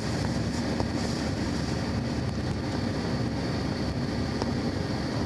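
Steady cabin noise of a jet airliner climbing after takeoff: engine and rushing-air noise heard from inside the passenger cabin, with a faint steady hum underneath.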